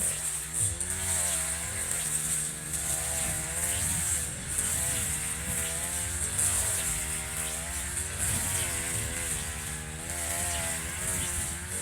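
Echo RM435 two-stroke brush cutter engine running, its pitch wavering slightly up and down, with a steady high whine over it.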